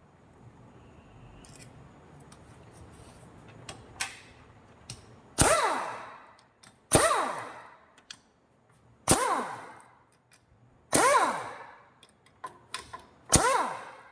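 Five sharp strikes about two seconds apart, each ringing out for about a second, after a few seconds of faint low rumble.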